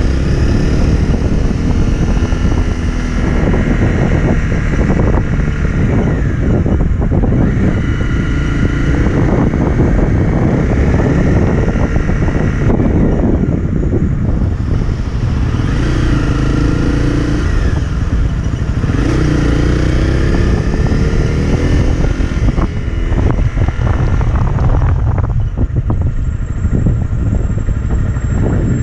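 Motorcycle engine running on the road, heard from the rider's camera with a heavy rush of wind over the microphone. The engine note climbs twice around the middle as the bike accelerates.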